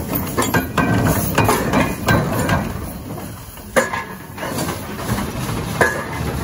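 The steam engine and gearing of a 1920s 90-ton Ruston Hornsby steam face shovel running, with a steady rumble and irregular clattering, and two sharp knocks about four and six seconds in.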